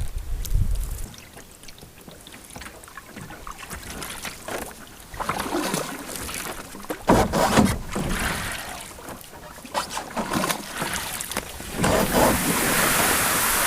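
Canoe paddle strokes in the water: irregular dips and splashes with wooden knocks against the hull. A steady hiss of water or wind sets in near the end.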